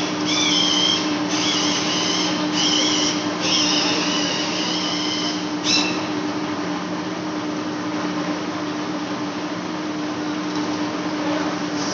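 Large lathe facing a big flange: the machine runs with a steady hum. A high-pitched squeal from the cut comes in several stretches over the first six seconds and stops suddenly about six seconds in.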